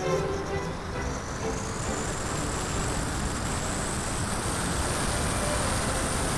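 Onboard sound of a Multiplex Cularis model glider under power: wind rushing over the camera and the electric motor and propeller whining, rising in pitch over the first few seconds and then holding steady as the motor spools up.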